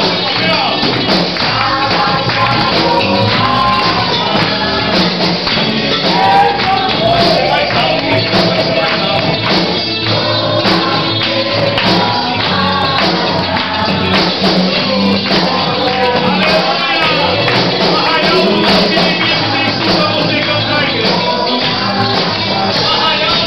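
Live band music: a man singing into a microphone over an amplified electric guitar, with jingling percussion keeping a steady beat.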